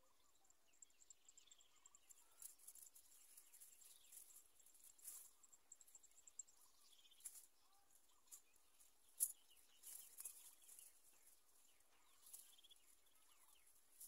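Faint outdoor ambience: faint bird chirps in the background with scattered soft clicks and rustles, and one sharper click about nine seconds in.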